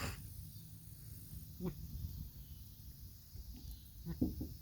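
Billy goat making its strange short, low woofing noise: once about a second and a half in, then a quick run of three or four woofs near the end.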